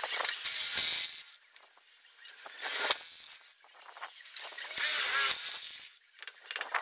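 Cordless DeWalt drill/driver boring pocket holes into a wooden board through a Kreg pocket-hole jig, in three short bursts of about a second each. The motor's whine bends in pitch as the stepped bit cuts in.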